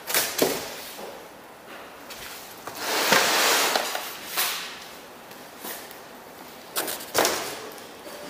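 Handling of a cardboard motor box and its packaging: a few knocks, a longer rustle about three seconds in, and two sharp knocks near the end.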